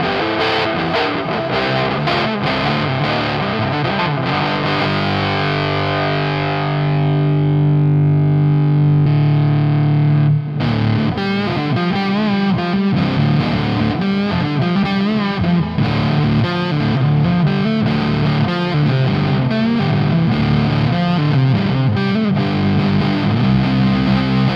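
Electric guitar played through a Dolamo D-2 fuzz pedal, heavily distorted, with reverb and delay added. About halfway through, one long held note fades and then cuts off suddenly before the playing starts again.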